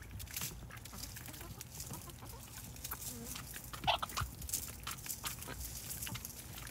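Backyard hens and ducks pecking and tearing at hyacinth leaves in a plastic tub, a steady patter of small clicks and snips, with hens clucking softly and one louder cluck about four seconds in.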